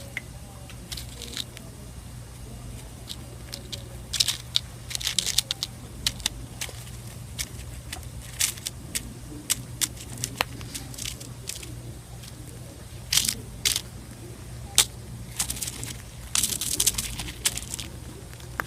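Cockatiel pecking and tearing at a crumbly baked bird muffin with seeds in it: irregular crackling clicks and crunches from its beak, coming in quick clusters with pauses between.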